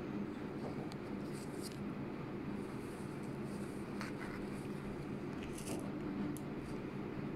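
Needle and thread drawn through fabric and the cloth handled during hand beading: a few short, faint scratchy rustles over a steady low hum.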